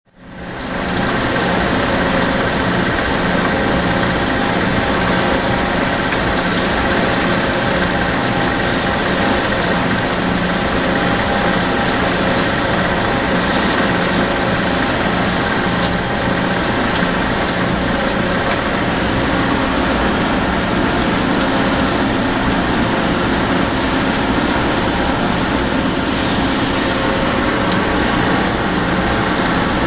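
Toshiba BTD13 CNC horizontal boring mill running: a steady mechanical hum with several held tones under an even hiss, fading in over the first second.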